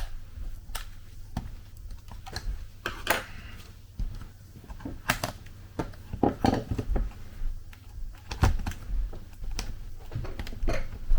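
Irregular clicks and taps of small plastic and metal laptop parts being handled during disassembly of the screen hinge, a few knocks ringing briefly.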